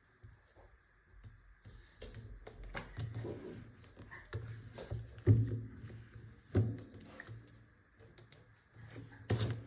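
Irregular clicks, taps and knocks in a small room, loudest in a few thumps around the middle and near the end.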